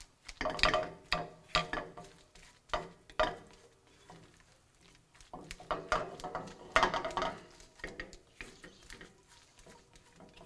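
A spatula stirring and scraping scrambled eggs with mushrooms around a nonstick frying pan, in irregular strokes with short pauses between.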